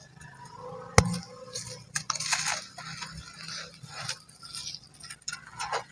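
Chunks of sand-cement and white concrete being broken and crumbled: crunching and crackling with scattered sharp snaps, the loudest about a second in and a quick run of snaps near the end.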